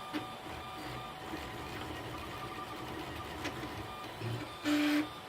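Homemade 3D printer's stepper motors humming and whirring through short printing moves, with a few faint ticks. Near the end there is a brief, louder pitched buzz lasting about a third of a second.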